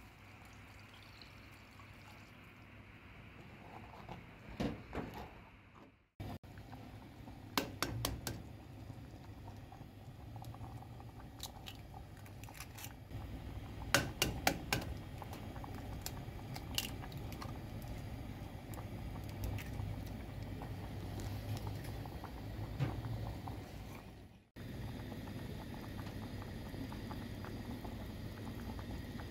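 Water poured into a glazed clay pot, then eggs tapped and cracked open against the pot's rim in clusters of sharp clicks, over a low steady hum.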